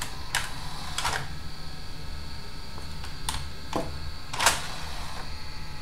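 A few sharp, irregularly spaced clicks from a DVD player being tested and handled on the bench, the loudest about four and a half seconds in, over a steady low hum.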